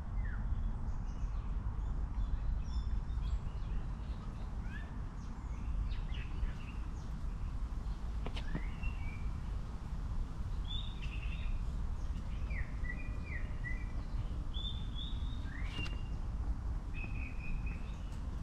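Small birds chirping and twittering now and then over a steady low rumble of outdoor background noise, with a few faint clicks.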